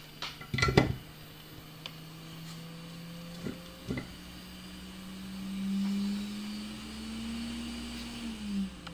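Hot air blower running with a steady fan hum that slowly rises in pitch, then falls near the end as it winds down. A loud clatter about a second in and two lighter knocks a few seconds later are the handpiece and parts being handled on the bench.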